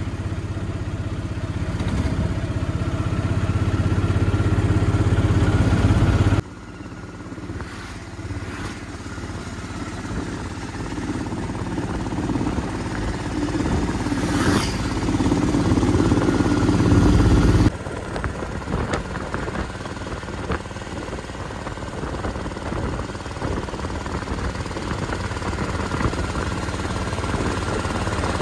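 Auto-rickshaw engine running on the move, a steady low hum with road noise. The loudness builds and then drops suddenly twice, about six seconds in and again past the middle.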